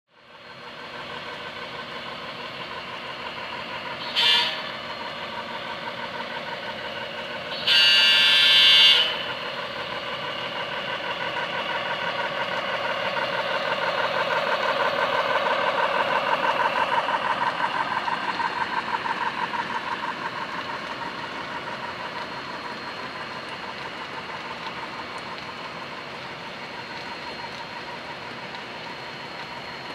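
HO-scale model diesel locomotive with a DCC sound decoder running past, its engine sound steady under a rapid rhythmic clicking of wheels on the track. It sounds its horn twice: a short toot about four seconds in and a longer blast of about a second around eight seconds. The sound swells as the locomotive passes, then eases as the loaded coal hoppers roll by.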